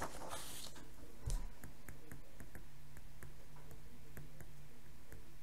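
Stylus tip clicking and tapping on a tablet screen while handwriting, a few faint clicks a second, over a faint low hum.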